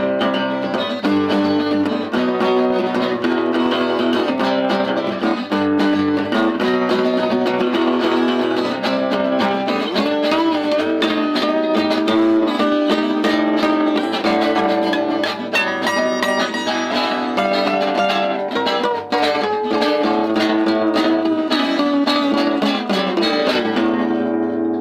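Acoustic guitars playing an instrumental break: steady strummed chords with many quick plucked notes over them.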